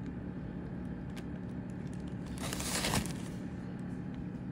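Plastic bag crinkling, with one short rustling swell a little past halfway that ends sharply, over a steady low hum.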